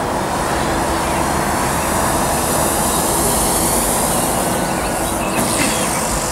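Hangar 9 Twist 60 RC plane's E-flite Power 90 brushless electric motor and 15x7 propeller droning during a low pass, swelling gently toward the middle and easing off, over a steady low rumble.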